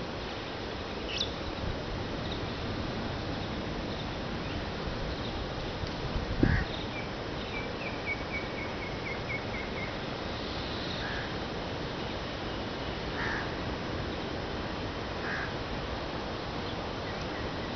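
Steady wash of surf on a beach, with scattered bird calls: several short calls and, around eight seconds in, a quick run of about a dozen short notes. A single low thump about six and a half seconds in.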